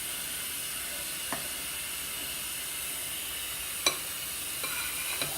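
Homemade slime being stirred and worked in a bowl: a few light clicks and taps over a steady hiss.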